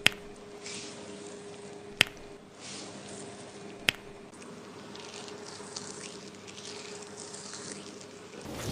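Soft wet squishing of hands working shampoo lather through hair and over the scalp, over a steady low hum. Three sharp clicks about two seconds apart.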